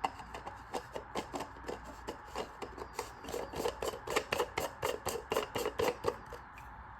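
A rapid run of short rubbing, scraping strokes, about four or five a second, loudest through the middle.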